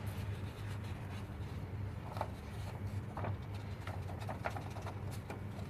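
Light, scattered clicks and taps of small stainless steel tactical pen parts being handled and fitted together, over a steady low hum.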